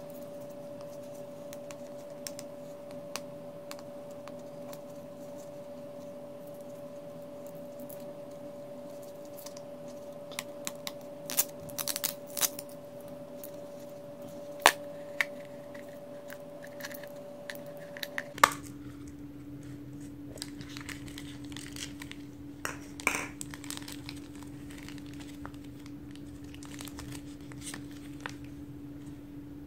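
Plastic crinkling and rustling as a clear plastic gachapon capsule is opened and the bagged toy and paper insert inside are handled, with a few sharp plastic clicks, the clearest near 15 s and 18 s. A faint steady hum runs underneath and drops in pitch about 18 seconds in.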